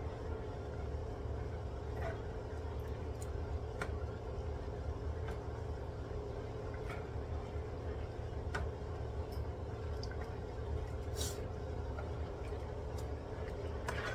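Steady low kitchen hum with scattered small clicks and ticks, about a dozen over the stretch.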